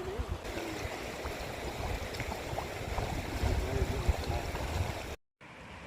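River water rushing over stones, with low rumbling underneath. The sound cuts out about five seconds in and comes back as a quieter steady rush.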